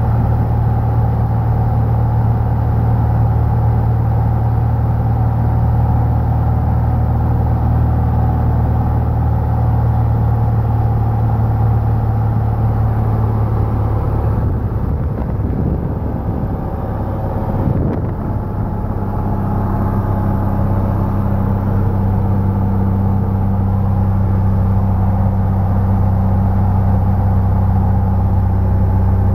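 Steady drone of a light single-engine piston aircraft's engine and propeller, heard inside the cabin. The engine note shifts and dips slightly about halfway through, then settles steady again.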